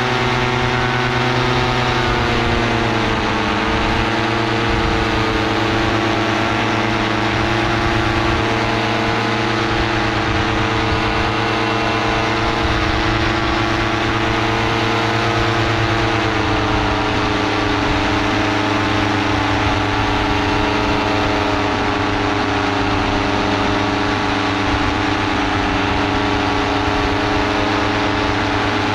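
Paramotor engine and propeller running steadily in flight. The pitch drops slightly about two seconds in and again about halfway through as the throttle eases off a little.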